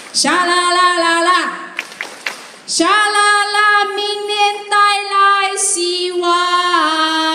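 A woman singing solo into a microphone, holding long notes. A short phrase comes first, then a pause of about a second, then a longer run of sustained notes.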